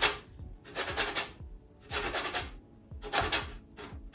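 A lime rasped up and down against a stainless steel box grater to take off its zest: four rasping strokes, about one a second.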